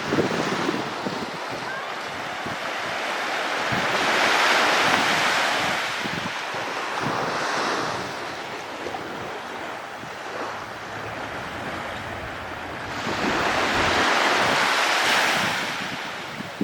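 Surf breaking and washing up the beach, swelling loudest about four seconds in and again near the end, with wind buffeting the microphone.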